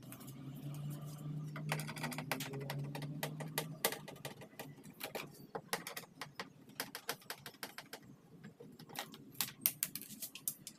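Irregular clicks and taps of tools and plastic or metal parts being handled while a car door's power window assembly is taken apart, with a low hum under the first few seconds.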